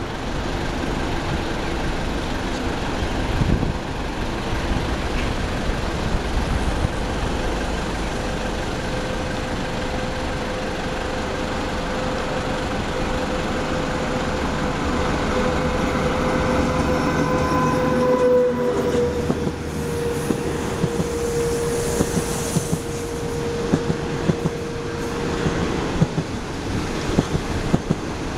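Chinese SS8 electric locomotive hauling 25Z passenger coaches approaches and passes. A steady tone from the train grows louder and drops slightly in pitch as it goes by about two-thirds of the way in. The coaches' wheels then clatter rhythmically over the rail joints.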